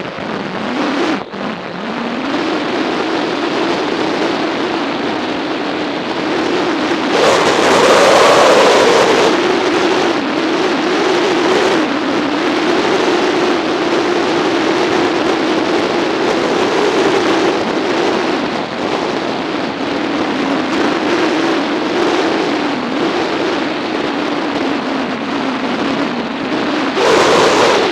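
Motorcycle engine running at cruising speed under heavy wind rush, its note dipping briefly and climbing back up about a second in. The rush of wind swells louder for a couple of seconds about a quarter of the way through and again near the end.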